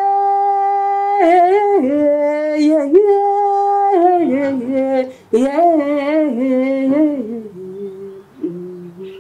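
A woman singing a wordless melody in long held notes, stepping down in pitch partway through and growing softer near the end.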